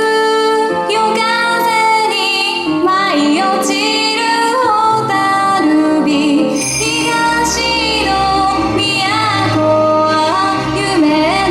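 Yosakoi dance music with a woman singing the melody, her notes sliding between pitches; a low bass part joins about five seconds in.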